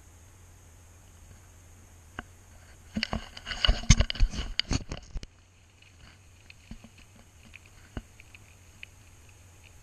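Bicycle rattling and clattering as it rolls over bumpy dirt and gravel, with a burst of sharp knocks lasting about two seconds starting roughly three seconds in, then only a few light ticks.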